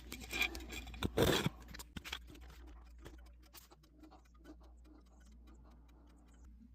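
Used engine oil dripping from a Sportster's oil-tank drain hose into a drain pan: a run of small ticks that thins out as the tank nears empty. A brief louder noise comes about a second in.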